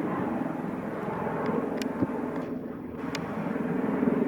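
Airbus H225M Caracal helicopter running, its main rotor and twin turbines giving a steady, fast-pulsing beat.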